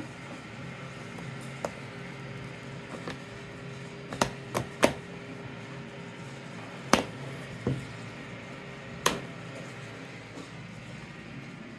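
Gilt metal frame and clasp of a vintage handbag clicking and tapping as it is handled, about six short sharp clicks over the middle few seconds, over a steady low background hum.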